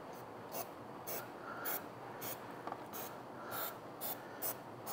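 Short spritzes of CA glue activator from an aerosol can, about two quick hisses a second, sprayed onto fresh CA glue to cure it.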